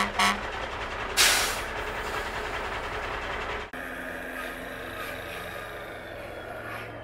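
Two sharp hits and a loud hiss like a truck's air brake, then a steady low machine drone. After a sudden cut, a quieter drone from radio-controlled scale construction models running, a truck and an electric excavator, with a faint falling whine near the end.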